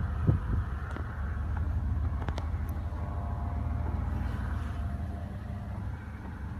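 A steady low engine drone, with a couple of light knocks near the start.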